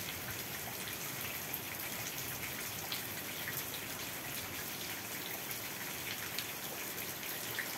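Heavy rain falling, a steady even hiss with a few faint ticks of drops.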